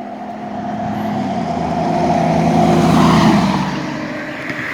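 A motor vehicle driving past on the road, growing louder to a peak about three seconds in and then fading, its engine note dropping in pitch as it passes.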